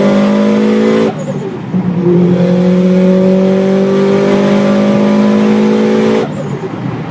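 Turbocharged Subaru Impreza flat-four engine pulling hard at high revs, its note climbing slowly. About a second in, and again near the end, the engine note cuts away abruptly into a rougher, noisier rush before the pull resumes.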